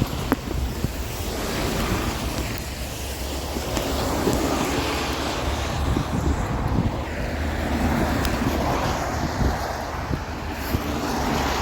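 Wind buffeting the microphone: a steady rumbling hiss that swells and eases, with a few light knocks.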